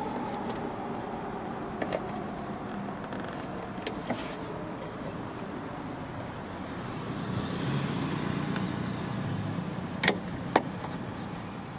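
Small clicks from the RAV4 liftgate gas strut's end fitting and retaining clip being pried with a screwdriver and worked off its ball stud, with two sharp snaps about ten seconds in. A vehicle passes by in the background around the middle.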